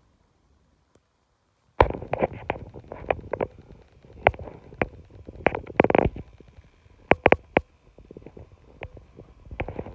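Handling noise from a phone or camera being picked up and carried: a quick run of irregular knocks and rubbing starting about two seconds in, after near silence.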